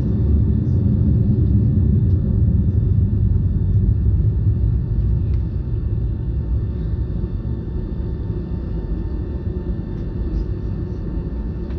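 Loud low rumble of a Boeing 757-200 jet airliner heard from inside the passenger cabin, with faint steady whining tones above it. The rumble eases a little about five seconds in.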